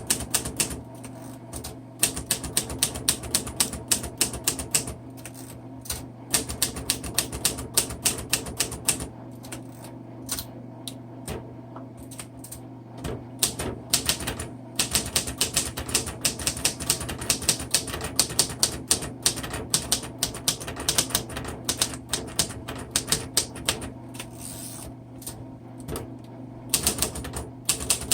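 1952 Royal Quiet DeLuxe manual portable typewriter being typed: runs of quick keystrokes, the type bars striking the platen, broken by short pauses.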